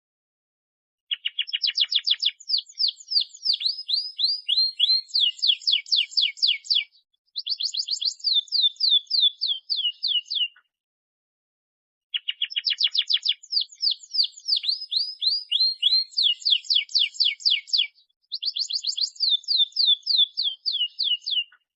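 Domestic canary singing fast trills of rapid down-slurred notes, about eight to ten a second, in phrases of a few seconds broken by short silent gaps. The same run of phrases plays twice.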